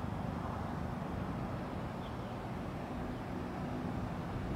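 Steady low outdoor background rumble with a faint hum.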